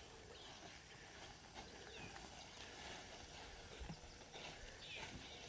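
Near silence: faint outdoor ambience with a few faint high chirps and a few soft knocks.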